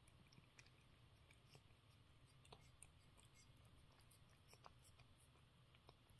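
Domestic cat licking a ceramic food bowl clean: faint, irregular little clicks of its tongue against the bowl, several a second.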